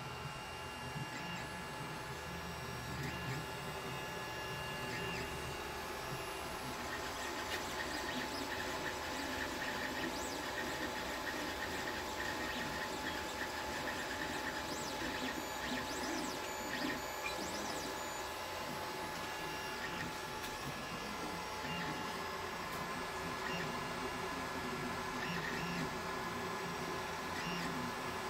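Creality Ender 3D printer running a print: its motors whir in shifting tones as the print head moves, over the steady hum of its fans.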